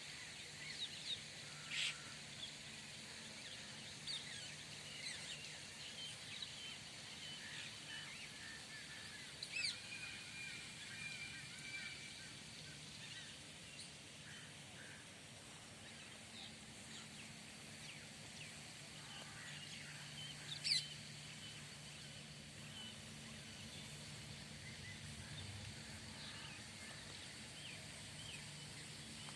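Birds chirping and calling: scattered short chirps and whistles throughout, with a few louder calls, the loudest about two-thirds of the way in. A faint steady low hum runs underneath.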